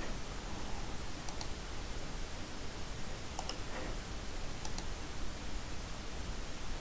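Computer mouse button clicking three times, each a quick double click of press and release, over a steady background hiss.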